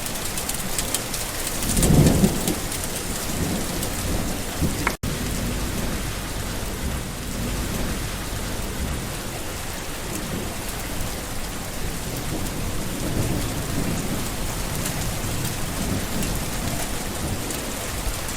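Steady rain falling on plants, an even dense patter of drops. A brief low rumble swells up about two seconds in, and the sound cuts out for an instant about five seconds in.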